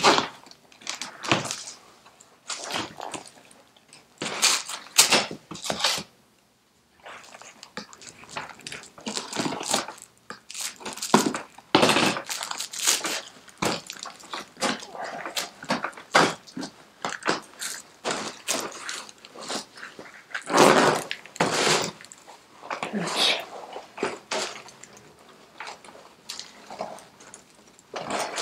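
Old torn seat cover being cut with scissors and ripped off a BSA Bantam seat base, making irregular tearing, snipping and scraping noises. Near the end the crusty, rotten foam padding is pulled free.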